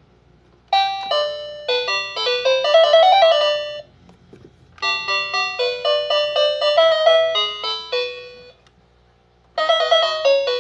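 Electronic toy telephone playing a chiming tune in three short phrases, with brief pauses between them.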